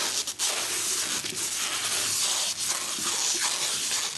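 Clear plastic wrapping rustling and crinkling steadily as it is pulled off a filament spool by hand, with a few sharper crackles.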